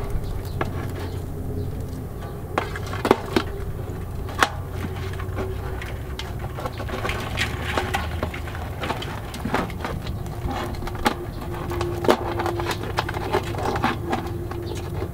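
Scattered sharp clicks and knocks as live mud crabs are handled in a metal pot: shells and claws knock against the metal and scissors snip at them. A low steady rumble runs underneath.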